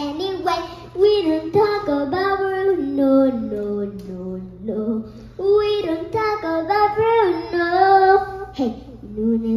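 A young girl singing a melody solo, moving between held notes with short breaks between phrases.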